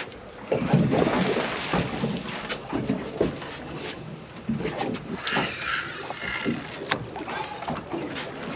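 Sea water slapping and sloshing against the hull of a drifting fibreglass boat, in short irregular splashes and knocks. A hiss rises over it about five seconds in and lasts about two seconds.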